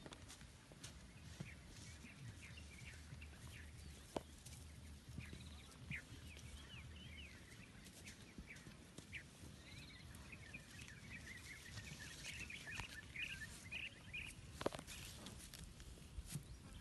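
Faint open-field ambience with small birds chirping in quick, repeated calls that grow busier in the second half, and a few soft clicks.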